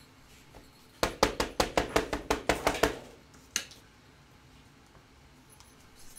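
An ink pad tapped quickly against a clear rubber circle stamp to re-ink it, a run of about a dozen sharp taps over two seconds, followed by one more tap.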